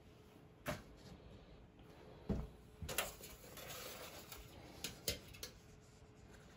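Small scissors snipping into the leathery shell of a blood python egg on a stainless steel table: a handful of faint, separate clicks and snips.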